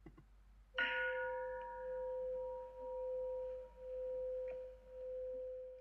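A bowl bell struck once, about a second in. Its bright overtones fade quickly, and one steady tone rings on, swelling and dipping slowly in loudness.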